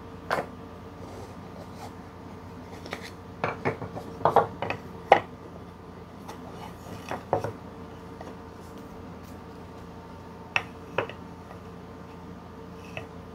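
Maple jar rings knocking and clattering against each other and the wooden workbench as they are handled and fitted together for gluing: scattered light knocks, bunched about three to five seconds in, with a few single ones later.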